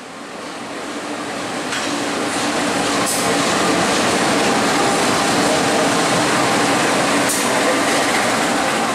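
A CC 201 diesel-electric locomotive passing close: engine drone and wheel rumble grow louder over the first few seconds, then hold steady. Two sharp clacks about three and seven seconds in.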